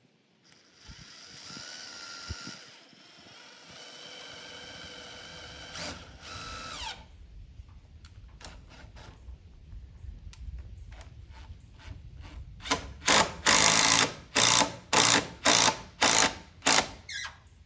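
Power drill driving fasteners: a motor whine that shifts in pitch for several seconds and winds down, then a run of short, loud bursts about two a second near the end.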